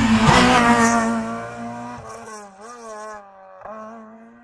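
Rally car passing close at high revs. Its engine then fades as it drives away, the engine note rising and dropping several times.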